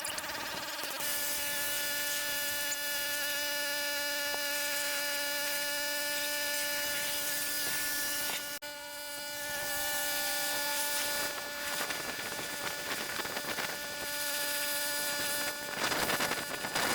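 A small motor running steadily with an even, high-pitched whine, holding the same pitch throughout, with a brief break about two-thirds of the way through.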